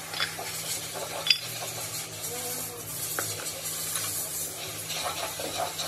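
Metal parts of an HX40W turbocharger cartridge clinking and scraping as it is taken apart by hand and the turbine wheel and shaft come out of the bearing housing. A few sharp metal clicks, the loudest with a short ring about a second in and another around three seconds in.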